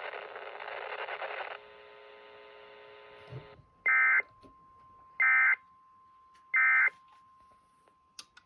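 Weather radio receiver static hissing, dropping about a second and a half in to a low hum that cuts off, then three short electronic beeps a little over a second apart, with a faint steady tone under them.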